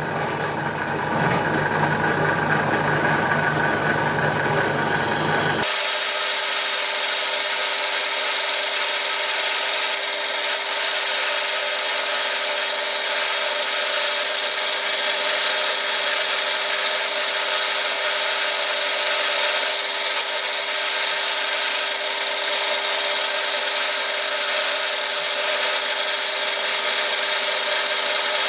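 Rust being scoured off a small steel garden spade blade with an abrasive tool, a continuous rough rubbing and scraping. About six seconds in it changes abruptly to a steadier, higher sound with an even whine.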